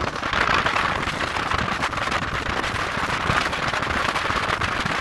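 A vehicle driving through a road tunnel, heard from inside the cab: steady road and engine noise with a dense crackling rattle.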